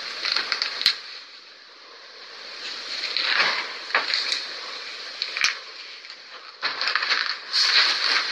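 Irregular scuffing and crunching, as of people moving on foot, with two sharp clicks, one about a second in and another about five and a half seconds in, over a steady hiss from the recorder.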